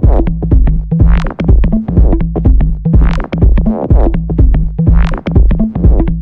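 Deep electronic track from a Korg Electribe groovebox: a drum-machine kick about twice a second under a steady synth bass line, with a bright filtered synth sweep that swells and fades about every two seconds.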